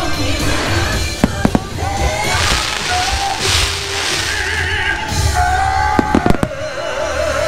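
Aerial fireworks going off over the show's music soundtrack: a few sharp bangs about a second in, a hissing stretch around the middle, and a quick cluster of bangs near the end.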